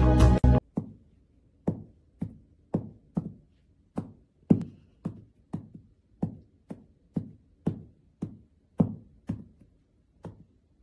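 Music cuts off about half a second in, followed by a puppy's tail thumping against the floor as it wags while lying on its side: short dull thumps, about two a second.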